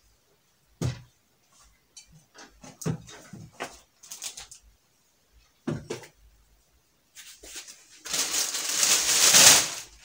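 A sharp knock about a second in, scattered small knocks and rustles, then about two seconds of loud rustling close to the microphone near the end, from handling at the counter and the camera.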